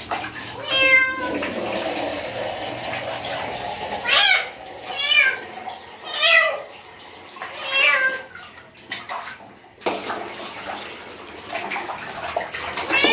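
Thin stray kitten meowing repeatedly, about six short cries, while it is bathed in a plastic basin, with water splashing and pouring between the cries. The kitten does not want the bath.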